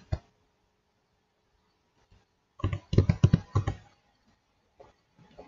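Typing on a computer keyboard: two sharp clicks at the start, then a quick run of keystrokes lasting about a second, and a few faint clicks near the end.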